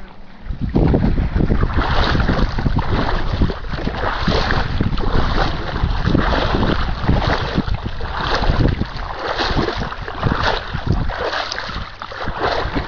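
Wind noise on the microphone, with a swish and splash about once a second as a person wades through shallow water and marsh grass.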